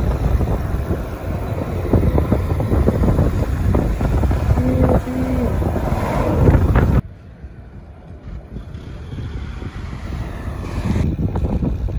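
Wind buffeting the microphone of a camera riding along on a moving road bike, a loud rumbling rush, with two short beeps about five seconds in. It cuts off abruptly about seven seconds in, giving way to quieter road traffic passing.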